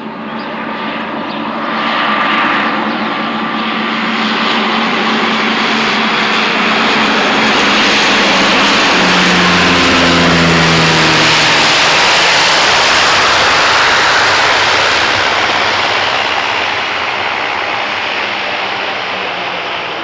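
An aircraft's engines passing close by: a loud roar that swells to its peak about halfway, drops in pitch as the plane goes past, then fades away.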